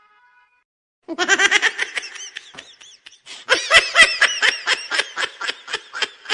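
Laughter sound effect, starting about a second in. It comes in two bouts of quick, evenly repeated laughing pulses, and the second bout is the louder.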